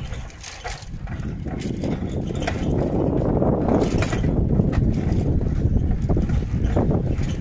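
Wind rumbling on the microphone, mixed with the tyre noise of a pedal bicycle rolling along a paved lane. It grows louder after about a second and then holds steady.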